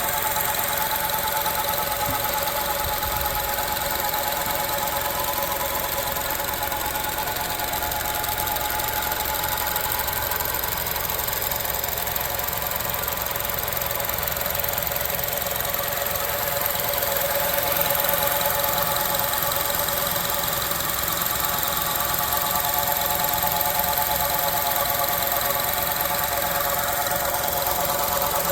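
2006 Honda CR-V with a steady hum made of several held tones over a background of running noise, a little louder about two thirds of the way in. Its source in the vehicle is not known.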